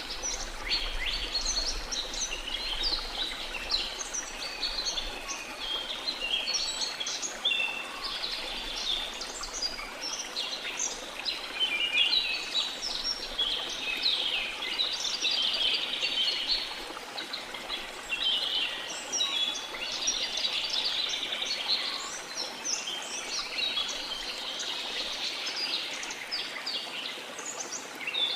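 Rain forest ambience: many birds chirping and calling at once in quick short notes, over the steady rush of a flowing river.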